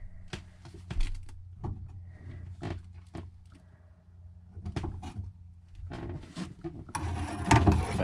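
Hands and tools working inside an air handler cabinet: scattered taps, clicks and knocks over a steady low hum. Background music comes in about a second before the end.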